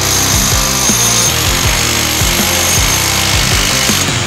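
Electric demolition hammer running, its chisel chipping concrete, heard under background music with a thumping beat.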